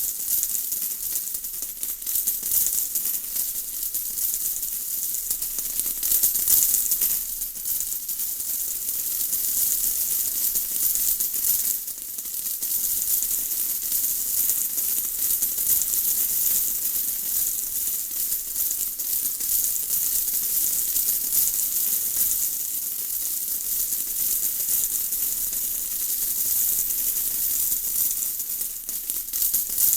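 Steady rain falling: a dense, high-pitched patter of countless drops that swells and eases a little.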